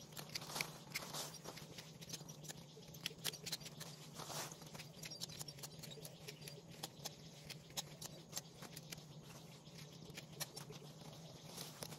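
Irregular crackling and rustling of leaves and twigs as hands work through a shrub, with many small sharp snaps, over a steady low hum.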